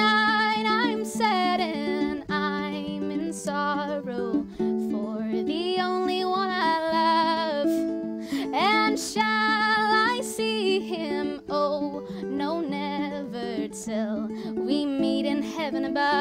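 A young woman sings a slow traditional ballad with some vibrato, accompanying herself on a plucked ukulele.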